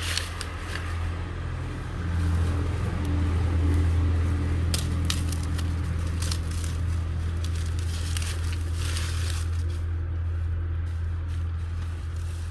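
An engine or motor running steadily with a low hum, a little louder from about two seconds in. Scattered sharp crackles and clicks sound over it.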